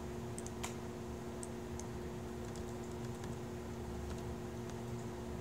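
Typing on a laptop keyboard: scattered, irregular key clicks over a steady low hum.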